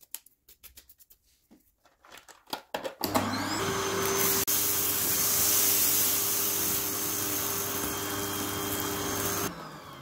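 A vacuum cleaner is switched on about three seconds in, its motor spinning up to a steady whine over loud rushing suction as the nozzle picks up spilled dirt from a rug. It is switched off near the end and winds down. Before it there is light scratching of a brush on a dust filter.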